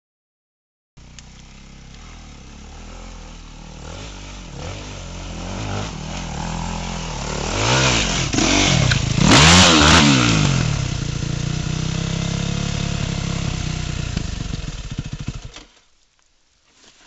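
Yamaha WR250F enduro motorcycle's single-cylinder four-stroke engine revving hard. It comes in about a second in, grows louder and swings up and down in pitch, with a harsh hissing burst on top at its loudest about halfway through, then cuts off abruptly near the end.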